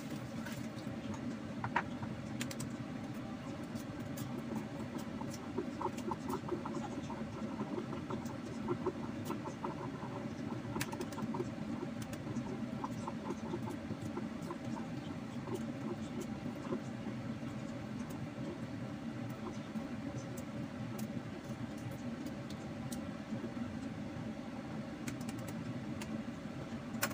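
Shells of hard-boiled eggs cracking and crackling in many small clicks as they are peeled by hand, over a steady low hum.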